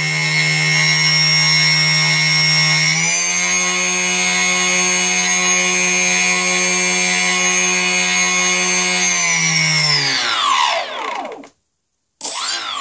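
Brushless electric motor of an RC plane running without a propeller, a steady whine that steps up in speed about three seconds in, holds, then winds down and stops, followed by a short spin-up and spin-down near the end. The owner suspects a loose or worn bearing in this motor.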